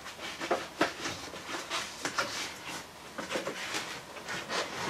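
Gloved hands working at a van's windscreen and wiper arms: a string of short, irregular rubbing and knocking sounds.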